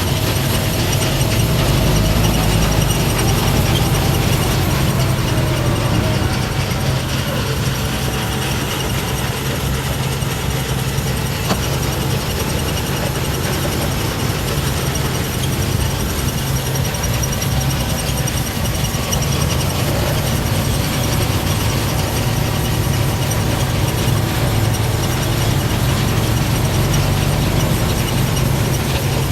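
Harvest machinery running steadily: continuous mechanical noise over a low, even engine hum.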